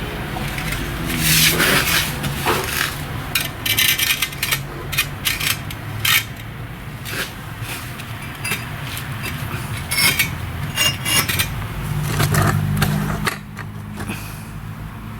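Bricklaying work: a steel trowel scraping mortar, with sharp clinks and knocks of metal on brick, over a low steady hum.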